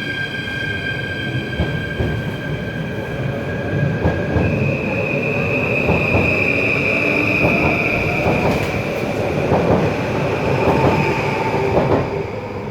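NS Flirt electric trains pulling out and rolling past: a steady high electric whine over the rumble of wheels on rail, with scattered clicks. About four and a half seconds in, the whine shifts to a single louder tone. The sound drops away at the very end.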